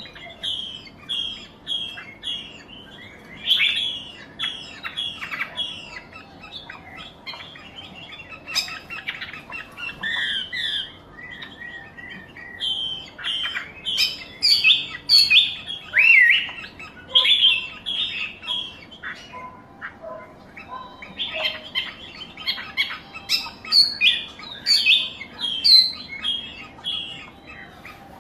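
Wambi songbird singing: quick runs of short, high chirps and harsher squawky notes, in bursts with brief pauses between phrases.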